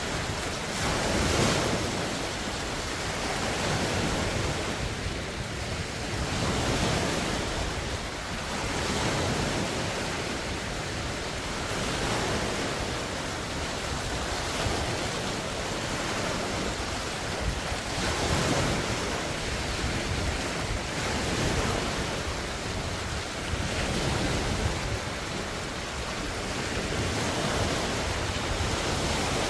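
Large wind-driven lake waves washing and breaking on the shore: a continuous rushing surf that swells and eases every few seconds.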